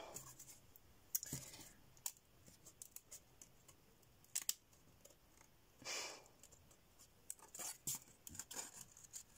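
Faint scattered clicks, taps and small scrapes of a thin laser-cut plywood sheet being handled while a wooden clock hand is pressed out of it, with a short rustle about six seconds in.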